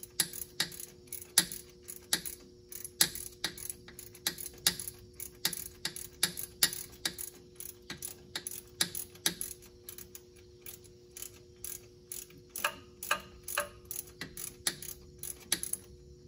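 Ratchet wrench clicking as a bolt is backed out of the air-conditioning compressor's hose fitting, about two or three clicks a second and quicker for a moment near the end.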